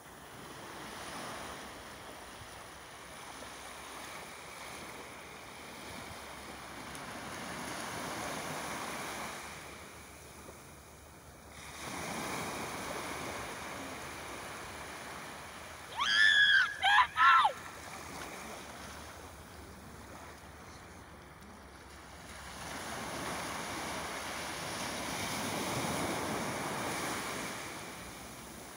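Shallow sea surf washing in and out in slow swells, with wind buffeting the microphone. About halfway through, three short high cries that bend in pitch ring out, the loudest sound here.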